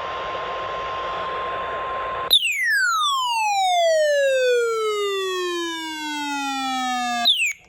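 A weather radio through heavy static carries a steady, faint NOAA Weather Radio 1050 Hz warning alarm tone. About two seconds in it cuts off abruptly and a loud buzzy tone takes over, sliding steadily down in pitch from high to low over about five seconds. It ends with a short upward blip and a sudden cut.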